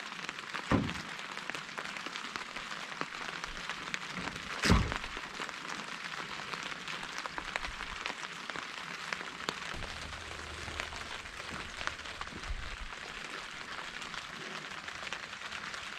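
Steady light pattering hiss of liquid, with two dull knocks: a small one about a second in and a louder one near five seconds.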